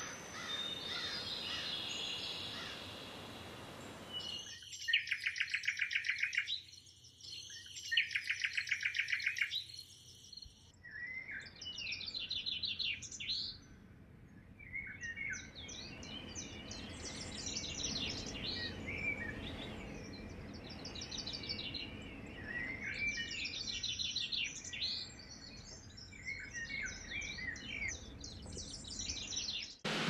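Wild birds singing. Two loud, rapid trills of about two seconds each come about five and eight seconds in, followed by a long run of varied chirping, warbling phrases.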